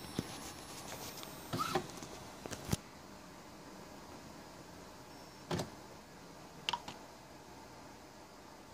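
Button presses on an Epson WF-2750 printer's control panel: a few short clicks and knocks, with a cluster in the first three seconds and two more about five and a half and seven seconds in.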